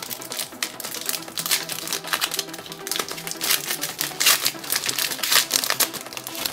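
Crinkling of a foil trading-card pack wrapper being handled and torn open, in irregular rustling bursts. Background music plays steadily underneath.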